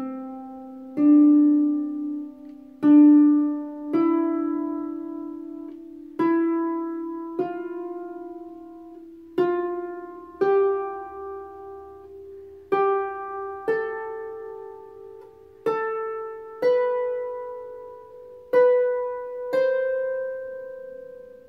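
Celtic harp, plucked by hand with finger two and then the thumb: seven pairs of single notes on neighbouring strings, each pair a step higher than the last, climbing from C up about an octave. Each note is left to ring.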